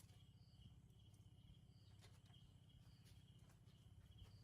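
Near silence: a steady low hum with faint, evenly repeated high chirps.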